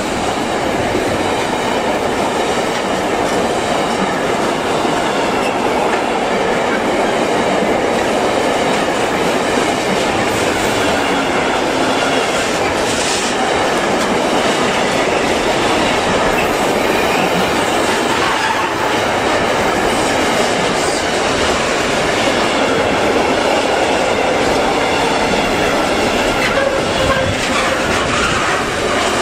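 Freight train of container and tank wagons rolling past at close range: a loud, steady sound of steel wheels running on the rails.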